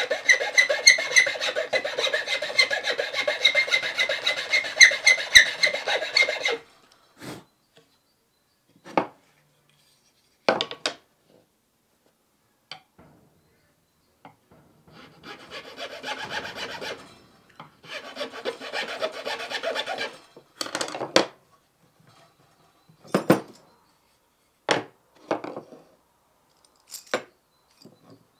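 Thin round file rasping back and forth on the slotted end of a wooden bucksaw handle. A fast, continuous run of strokes lasts about the first six seconds. After that come single strokes with gaps, a second run of strokes around the middle, and a few more single strokes near the end.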